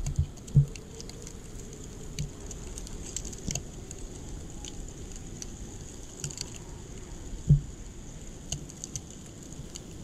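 Campfire crackling, scattered sharp pops over a steady hiss, with two louder dull thumps, one about half a second in and one past the middle.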